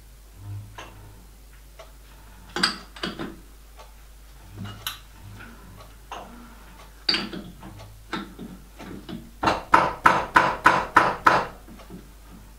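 Metal clicks and knocks from adjusting a lathe's four-jaw chuck with a chuck key and turning it by hand while centring a stainless steel bar against a dial indicator, ending in a quick run of about eight taps, the loudest part.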